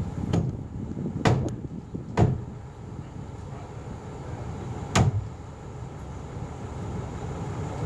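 Several sharp, irregularly spaced knocks on timber framing as a crane-hung steeple roof is set onto its tower, the loudest about five seconds in, over a steady low rumble.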